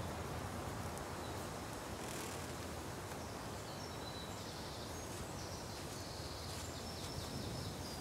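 Forest ambience: a steady soft hiss, with high, short bird chirps in the second half.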